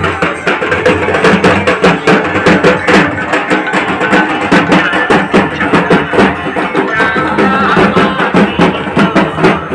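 Dhak, the large Bengali barrel drums, beaten with sticks in a fast, steady rhythm.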